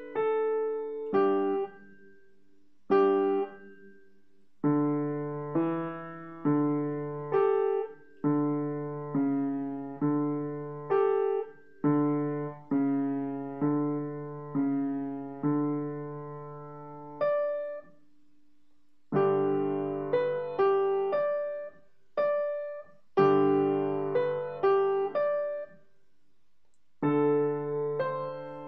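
Piano played by a young beginner: a simple two-handed march, note by note, with a bass note under the tune. It stops for a second or two between phrases, several times.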